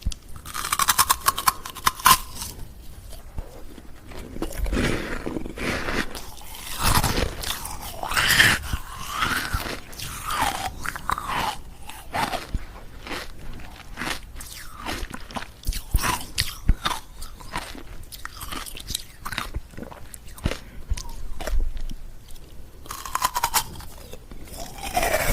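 Ice cubes being bitten and chewed, crunching crisply. Dense bursts of rapid cracking come about a second in and again near the end, with scattered crunches between.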